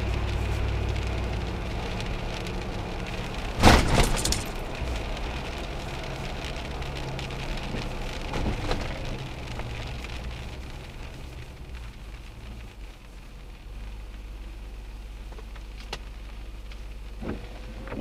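Vehicle engine and tyre noise on a wet road, heard from inside the cab, easing off as the vehicle slows and settling into a steady idle hum once it stops. A loud clatter about four seconds in, with a few lighter knocks later.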